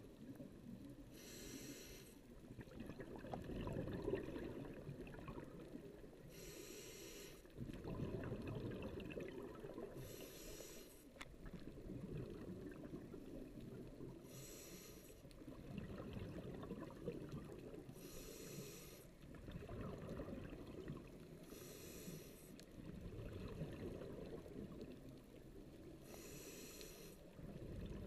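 Scuba diver breathing through a regulator underwater: a short hiss of each inhale, then a longer bubbling rumble as the exhaled air leaves, about every four seconds, seven breaths in all.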